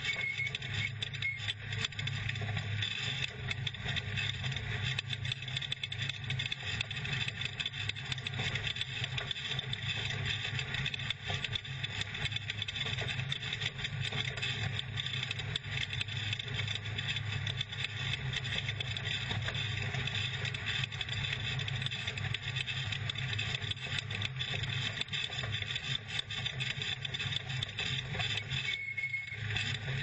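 Off-road race truck driving along a rough dirt course, heard from inside the cab: a steady engine drone mixed with tyre and chassis noise.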